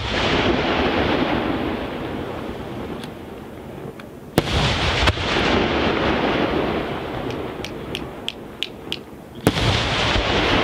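Aerial firework shells bursting, each sharp report followed by a long rolling rumble. Two loud bursts come close together about four and a half seconds in, a quick run of small pops follows a few seconds later, and another loud burst comes near the end.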